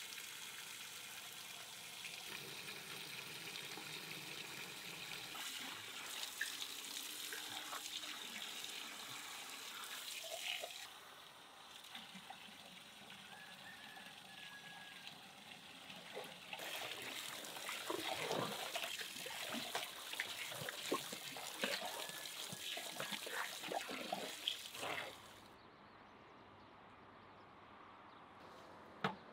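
Tap water running steadily into a plastic basin of raw whole chickens, stopping about a third of the way in. Then irregular splashing and sloshing as the chickens are rubbed and washed by hand in the water, ending abruptly near the end.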